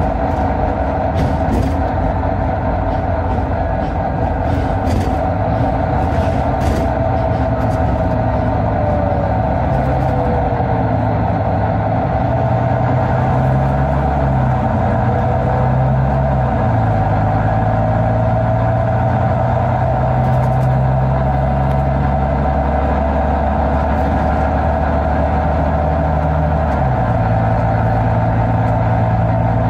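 Volvo B9TL double-decker bus's Volvo D9B 9.4-litre diesel running under way, its note stepping up and down in pitch a few times as it drives through the ZF Ecolife six-speed automatic. A faint whine slides up and down in pitch, and there are scattered light clicks and rattles, mostly in the first few seconds.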